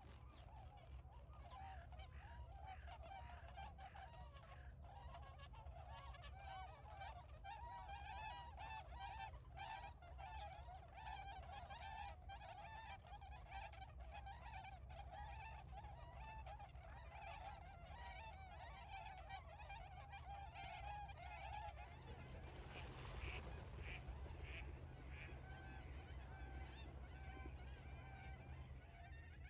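Flock of Bewick's swans (tundra swans) calling, many overlapping honking calls over a steady chorus of more distant birds. About three-quarters of the way through, a brief hiss of noise rises over the calls.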